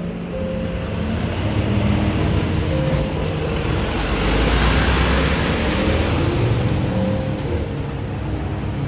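A car passing by on the street, its road noise rising to a peak about halfway through and then fading.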